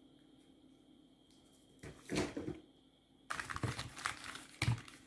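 Fireworks being handled out of a selection box: packaging rustling and crinkling in two spells, about two seconds in and again from about three seconds, with a sharper knock near the end.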